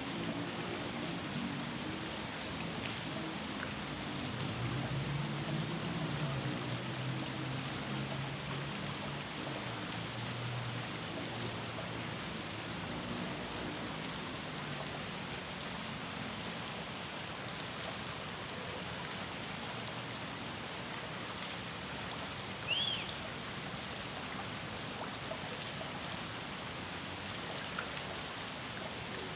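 Steady rain falling on a pond, an even hiss of drops on the water. A low droning sound underlies the first half and fades out, and a single short high chirp comes about two-thirds of the way through.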